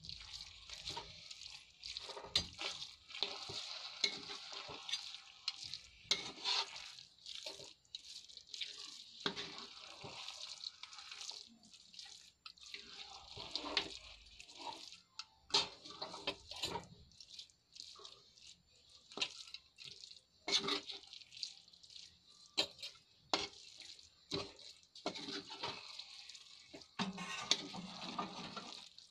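Grated-carrot halwa with mawa being stirred in a pan: a spoon scraping and clicking against the pan in an irregular run of short strokes over a soft hiss.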